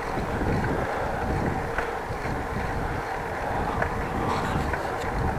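Wind buffeting an action camera's microphone while riding a bicycle, with a steady low rumble of tyres on the bike path and a few faint ticks.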